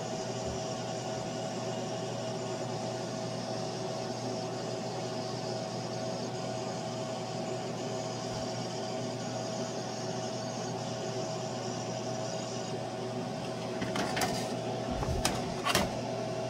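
Laser engraving machine running with a steady hum and a higher hiss that stops about 13 seconds in. Three sharp knocks follow near the end.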